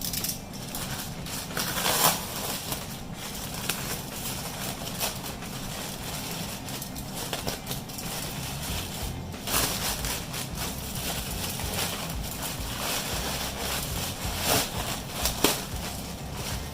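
Keyboard packaging being handled: continuous rustling and crinkling of box and wrapping, with a few louder crackles along the way.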